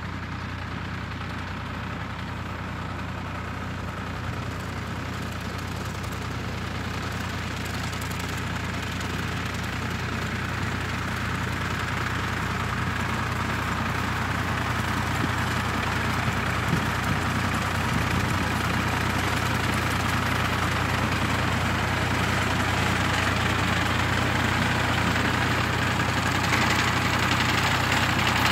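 Blue Ford farm tractor's engine running steadily while mowing hay, growing steadily louder as the tractor approaches.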